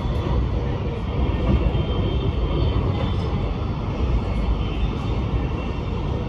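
Metro X'Trapolis electric suburban train running at speed, heard from inside the carriage: a steady rumble of wheels on rails with a faint high whine over it.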